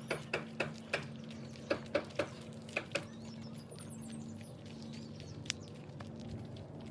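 Footsteps on a road surface, a quick run of steps through the first few seconds, with birds chirping faintly and a low steady hum behind.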